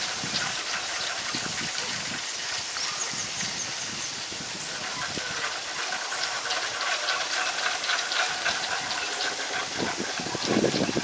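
Tropical forest ambience: a steady high hiss with faint sustained tones and many short scattered chirps, with a louder low rustle about ten seconds in.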